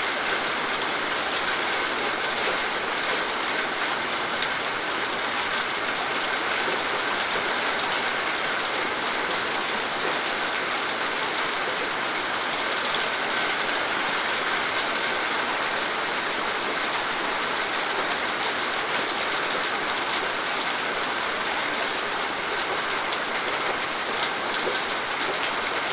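Steady rain falling, a continuous hiss of rainfall with scattered individual drops striking a surface.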